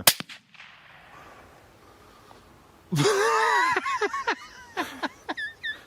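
A single sharp rifle crack right at the start. About three seconds in, a hit coyote gives loud, wavering yelping cries that fall away, with a few short high yips near the end.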